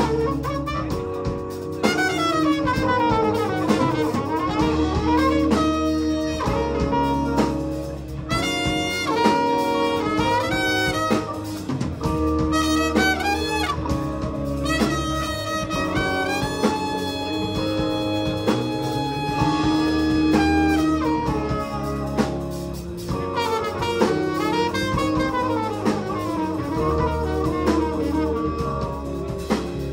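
Live jazz band: a trumpet plays a lead solo over electric guitar, electric bass and drum kit. The trumpet moves from fast runs with sliding pitches in the middle to long held notes later.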